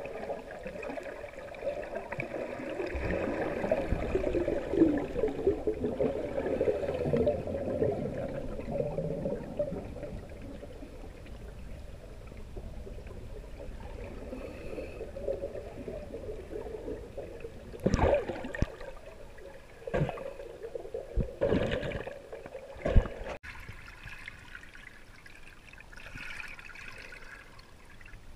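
Muffled water sloshing and gurgling around a camera held underwater. Several sharp knocks or splashes come close together about two-thirds of the way through.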